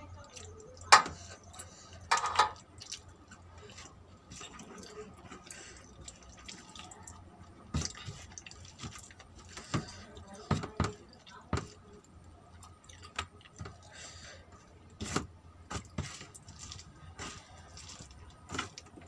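Close-up eating sounds: rice and curry squished and mixed by hand on a plate, with wet mouth clicks and lip smacks while chewing. Scattered short clicks run through it, the loudest two being sharp ringing clinks about one and two seconds in.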